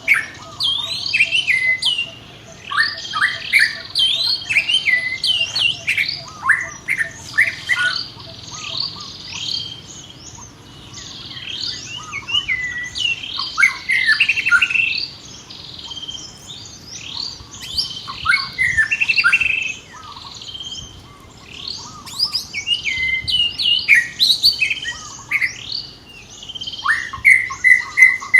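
Rapid high-pitched chirping and squeaking calls, many falling in pitch, coming in bursts with short pauses between them.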